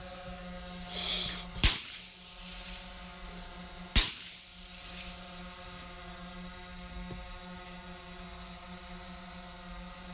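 Two rifle shots from an AR-15, about two seconds apart, each cracking sharply and then dying away quickly. A steady hum runs underneath.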